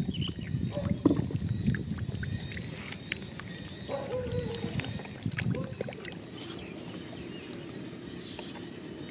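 Catfish thrashing and splashing in shallow muddy water, a rough sloshing with scattered small slaps that dies down after about six seconds.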